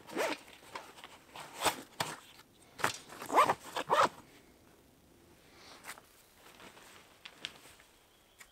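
Zipper on a backpack pocket being pulled open in about five short, quick strokes over the first four seconds, followed by faint rustling as gear is handled.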